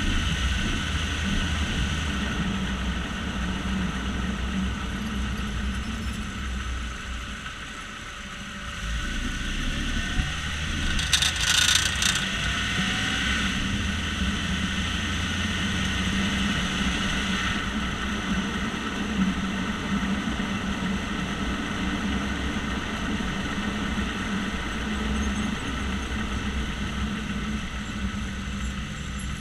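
Jeep Grand Cherokee on the move, with a steady grinding noise from the front right wheel over a low road rumble. A brief clatter comes about eleven seconds in.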